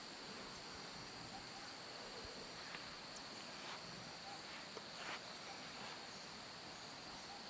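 Faint, steady insect chorus: a continuous high-pitched drone with a few faint ticks scattered through it.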